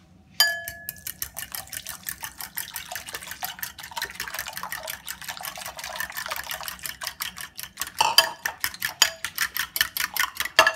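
Fork beating eggs and milk in a glass mixing bowl: rapid clicking of the fork against the glass with the liquid sloshing. It starts with a ringing clink about half a second in. The strokes turn louder and more spaced near the end.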